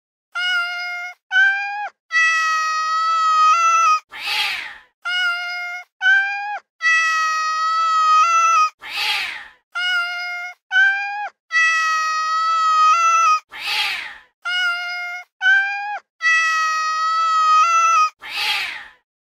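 Recorded cat meowing, looped: two short meows and one long meow, then a short harsh noisy burst, the same sequence repeating four times.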